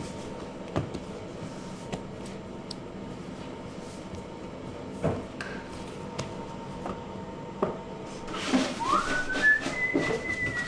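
A person whistling a tune, starting about three-quarters of the way in, with gliding and held notes. Before it there are a few light knocks, from dough being worked on a wooden bench.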